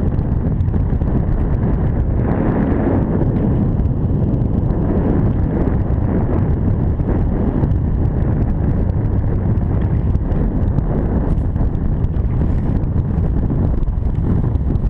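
Wind buffeting the microphone, a steady, loud rumble.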